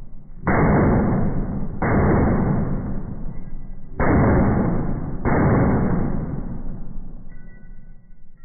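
Four rifle shots slowed down to slow motion, each a deep, dull boom with a long drawn-out fade, the shots a second or two apart. Faint steady tones of music come in near the end.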